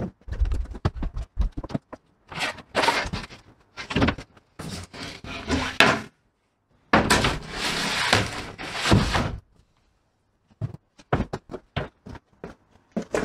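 Irregular knocks, thuds and scraping as a large thin wooden sheet is pulled out and handled. There is a quiet pause about three-quarters of the way through, then a run of short sharp clicks near the end.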